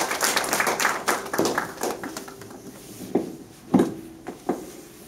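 Small audience applauding, the clapping thinning out and dying away over the first two seconds, followed by a few scattered single claps and short sounds.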